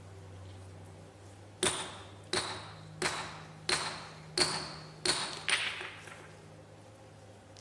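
Seven hand-hammer blows on steel set into a granite block, about one and a half a second, each with a short metallic ring. A low steady hum runs underneath.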